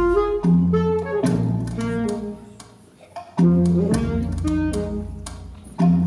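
Instrumental music: a low bass line with a melody above it, in short phrases that dip and start again loudly about every two and a half seconds.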